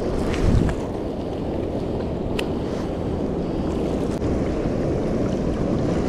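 Fast, turbulent water rushing down a concrete-lined spillway channel, a steady rush with a low rumble, with some wind noise on the microphone.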